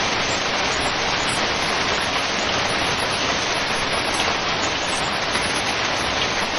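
Heavy hailstorm: a dense, steady rush of hailstones striking surfaces, with no let-up.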